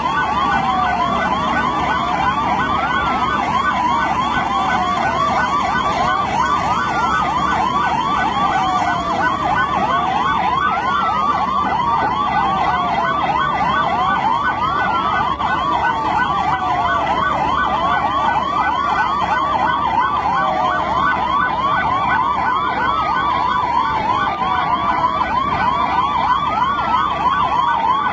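Several emergency-vehicle sirens sounding together. A slow wail falls in pitch about every three seconds over a rapid warbling yelp, with no break.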